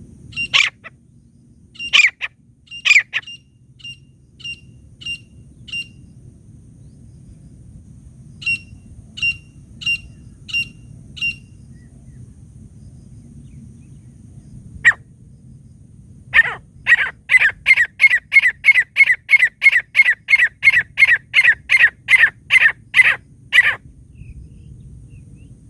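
Grey francolin calling: a few loud harsh calls, then short sharp notes in groups, then a fast run of about twenty repeated calls, roughly three a second, near the end.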